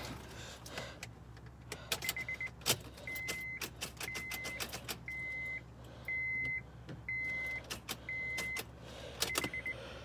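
Car's warning chime sounding inside the car: a steady high beep about half a second long, once a second, six times in a row, with a faster pulsing chime just before and after. Scattered clicks and knocks come through between the beeps.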